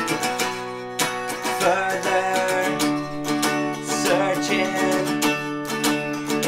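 Music: an instrumental passage of a rock song, led by electric guitar.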